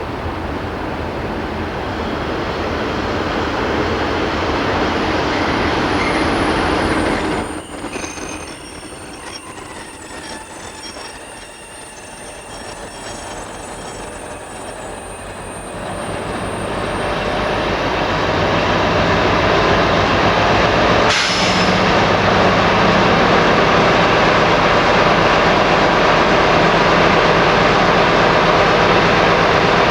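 Freight train on the move: wagon wheels squealing and running on the rails. The sound cuts off abruptly about seven seconds in. Over the second half a diesel locomotive, a Class 60, comes up loud and runs steadily with a low engine hum.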